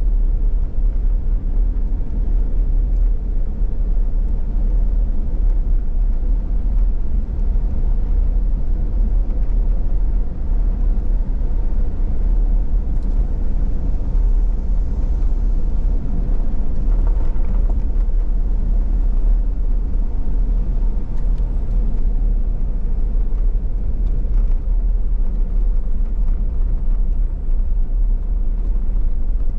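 Car driving along a backroad: a steady low rumble of road and engine noise.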